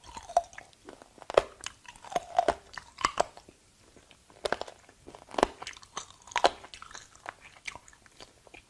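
Close-up chewing of pork-rib rice noodle rolls, with sharp irregular crunches about once a second as the teeth work through tough rib gristle, between softer wet mouth sounds.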